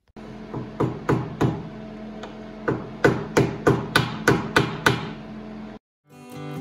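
Mallet striking a socket used as a seal driver, pressing a new seal into the water-pump housing of a 1974 Mercury 4 hp outboard: a few light taps, then a run of about eight harder strikes, roughly three a second, over a steady hum.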